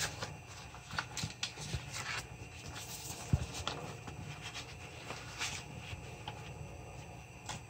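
Faint, scattered clicks and crinkles of a plastic packaging bag being handled close to the microphone, with one sharper click about three seconds in.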